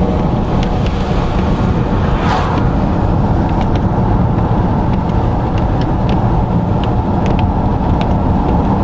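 Steady road and engine noise inside a moving car, a dense even rumble, with scattered faint ticks and a brief hiss about two seconds in.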